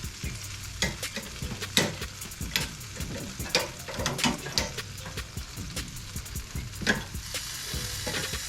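Basted chicken leg quarters sizzling on a grill grate, with irregular clicks and scrapes as the pieces are turned over.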